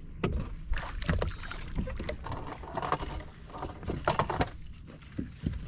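Sounds aboard a fishing boat while a hooked fish is being fought: irregular knocks and thumps, with a few short noisy stretches.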